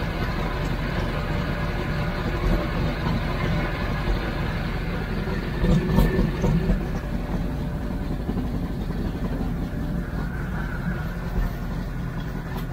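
Supercharged V8 in a speed boat idling steadily, with a brief louder swell about six seconds in.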